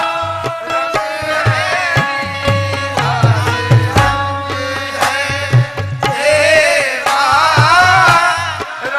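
Qawwali music: an electronic keyboard plays a held melody over steady hand-drum strokes, and a singer's voice comes in about six seconds in.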